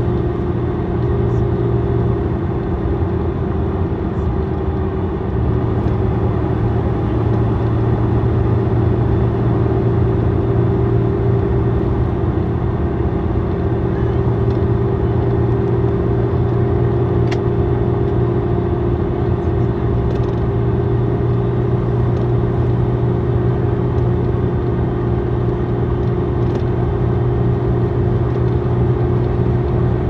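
Iveco Tector 6 six-cylinder diesel engine of an Iveco Midirider bus running at a steady speed, an even hum that holds one pitch without revving up or down.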